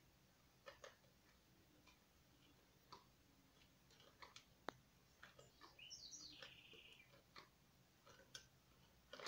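Near silence: faint room tone with a few scattered soft clicks and ticks, a faint high chirp about six seconds in, and a sharper click right at the end.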